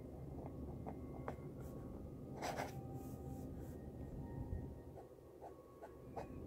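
Flexible "wet noodle" fountain pen nib scratching on paper as it writes cursive: short scratchy strokes, with one longer, louder scratch about two and a half seconds in.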